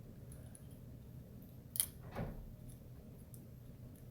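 Small metal parts of a shotgun trigger group being handled during reassembly: a sharp metallic click a little under two seconds in, a softer knock just after, and a few faint ticks.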